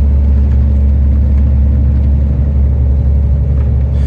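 Iveco Stralis truck's diesel engine running under steady load with road noise, heard from inside the cab as a loud, even low drone.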